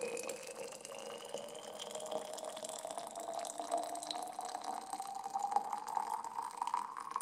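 Liquid being poured in a steady stream into a mug, the pitch of the filling rising steadily as the mug fills up.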